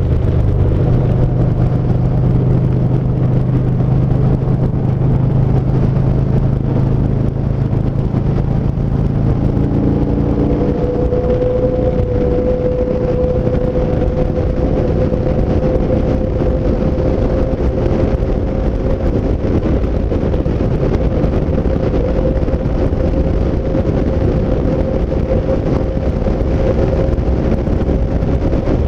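Yamaha SCR950's air-cooled V-twin engine running at a steady road speed, with heavy wind rush over the microphone. A strong low engine note fades after about ten seconds, leaving a steady hum under the wind noise.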